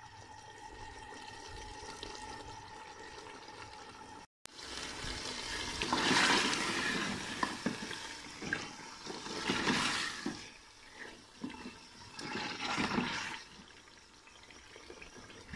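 A wooden spoon stirring potato and beef curry in an aluminium pot while the thick sauce bubbles and sizzles, its last water cooking off during the frying stage. Loud bursts of wet scraping and sizzling come about six, ten and thirteen seconds in, after a quieter, steady stretch at the start.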